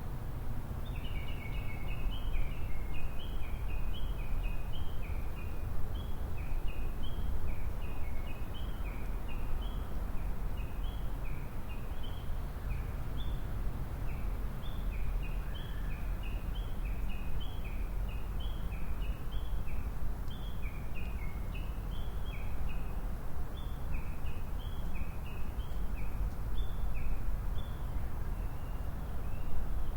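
Japanese bush warbler calling a long, unbroken run of quick, short repeated notes, over a steady low rumble of wind on the microphone.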